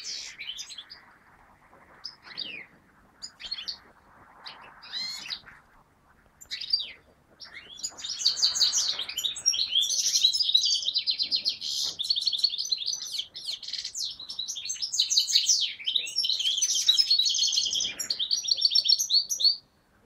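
Caged finch singing: a few scattered short calls, then a long, fast twittering song that sets in about halfway and cuts off suddenly near the end.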